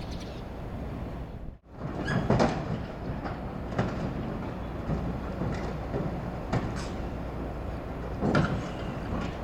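Excavator grapple demolishing a scrapped subway car: metal clanks and scraping over a steady low rumble, with sharper bangs about two, four, six and a half and eight and a half seconds in.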